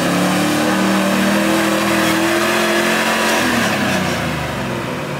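Land Rover Discovery 1's 3.9-litre engine revving hard under load as it climbs a muddy slope. The revs fall away about three and a half seconds in.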